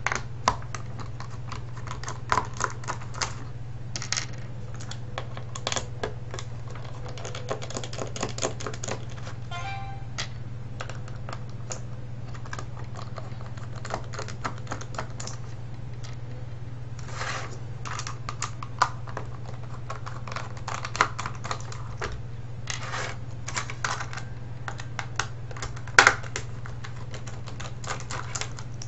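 Irregular clicking and rattling of small plastic parts and a hand tool as a vTech cordless phone's plastic housing is unscrewed and pried apart, with a short squeak about ten seconds in. A steady low hum runs underneath.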